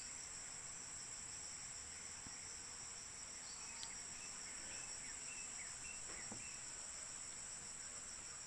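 Steady, high-pitched chorus of insects trilling without a break, with a few short, faint chirps scattered through it.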